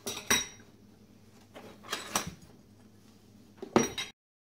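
Lengths of black 2020 aluminum extrusion clinking and knocking against each other as they are handled: sharp metallic knocks in three clusters, the last near the end, after which the sound cuts off abruptly.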